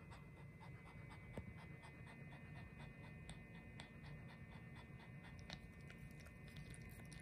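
Maltese dog panting faintly and quickly.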